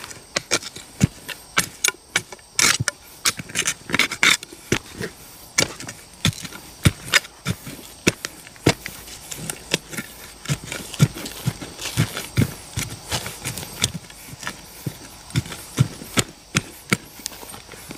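A machete chopping and scraping into red clay soil while digging out a yam tuber: an irregular run of sharp strikes, one to three a second, with loose earth crumbling between them.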